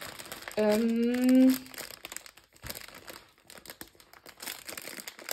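Clear plastic packaging holding small bags of diamond-painting drills crinkling as it is handled and turned. About half a second in, a woman's drawn-out hum rises slightly for about a second and is the loudest sound.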